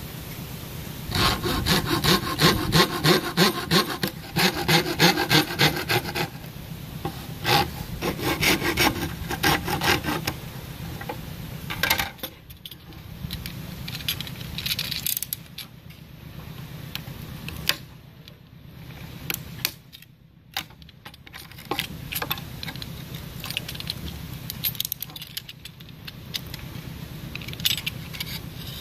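Hand hacksaw cutting through a green bamboo stem in rhythmic back-and-forth strokes, stopping about ten seconds in. After that a utility knife scrapes and shaves the bamboo more quietly, with scattered clicks.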